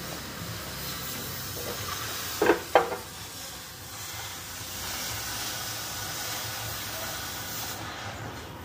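Oxy-fuel cutting torch hissing steadily as it cuts through a steel truck frame member, with two sharp metallic knocks a little under halfway through. The hiss drops away near the end.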